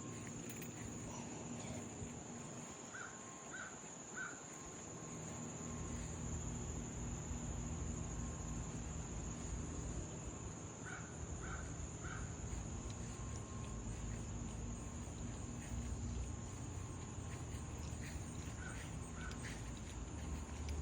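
A crow cawing in short runs of three, a few seconds apart, over a steady high insect drone, with a low rumble that comes in about six seconds in.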